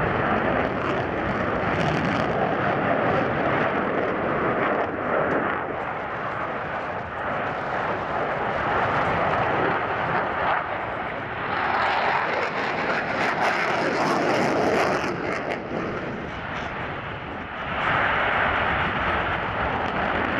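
Jet roar from a Boeing F/A-18 Super Hornet's twin General Electric F414 turbofan engines as it manoeuvres in tight turns. The roar is continuous and rises and falls several times as the jet turns and passes, with a crackling edge in the middle of the stretch.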